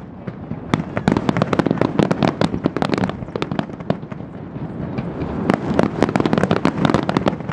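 A dense barrage of aerial firework shells bursting, many bangs and crackles overlapping without a break.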